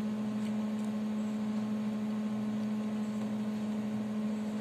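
Steady low electrical hum with a faint hiss underneath.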